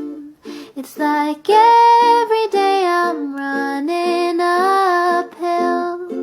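Background music: a high voice sings a melody in held notes and short phrases.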